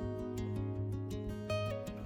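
Instrumental background music led by plucked guitar notes over a held low note.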